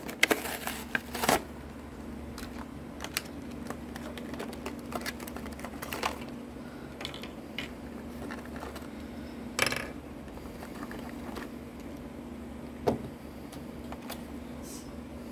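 A plastic blister pack from a diecast toy truck being opened by hand, crackling and clicking. A quick run of crackles comes in the first second or so, then scattered clicks, over a steady low hum.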